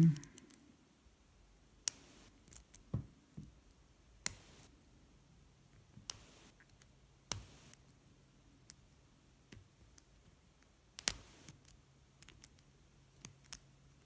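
Steel lock pick and tension wrench working in the keyway of a heavy Guard brass padlock: scattered sharp metallic clicks a second or two apart, some with a short scrape, as the pick lifts and drops the spring-loaded pins.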